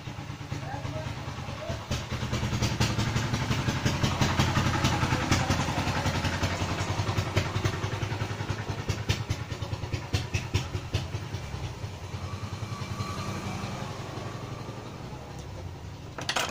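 A motor vehicle's engine running close by, swelling about two seconds in and slowly fading over the next ten seconds. A short clatter near the end as the soldering iron is set down.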